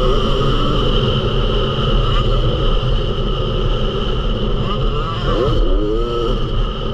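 Onboard sound of a Yamaha YZ250 two-stroke motocross bike's engine being ridden hard on a dirt track, its revs rising and falling, with wind noise on the microphone.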